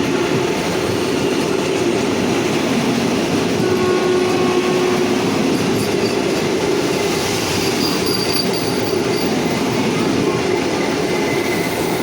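Vande Bharat Express train running, a steady loud rumble of wheels on rail, with brief faint squeals from the wheels a few times.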